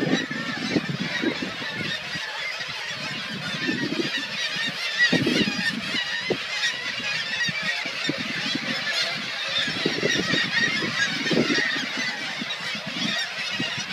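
Black-legged kittiwake colony calling: a dense chorus of many overlapping calls, with irregular low thumps underneath.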